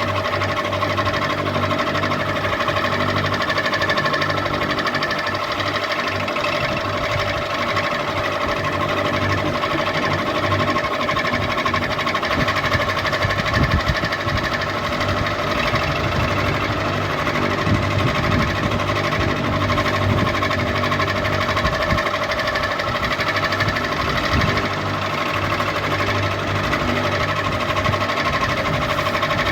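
Ceiling fan running steadily: a motor hum with a steady whine held at a few pitches.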